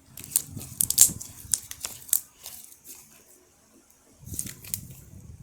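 Sticky butter slime being squeezed and pulled by hand, making quick irregular clicks and crackles through the first couple of seconds. A softer rustle follows near the end.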